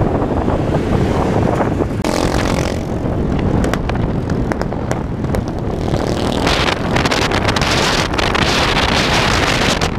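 Wind buffeting the microphone of a moving camera, over a low, steady vehicle engine rumble in road traffic; the wind noise gets louder and hissier from about six and a half seconds in.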